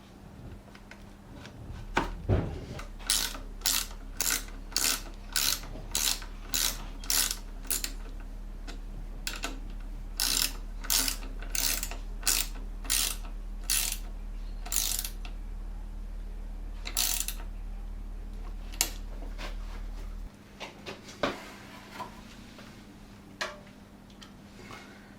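Ratchet spanner being worked in two runs of regular strokes, about two a second, as fittings are tightened. A steady low hum stops suddenly near the end.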